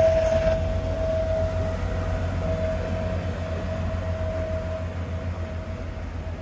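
Friendship water taxi's engine rumbling with a constant hum as the boat passes close, then fading as it pulls away.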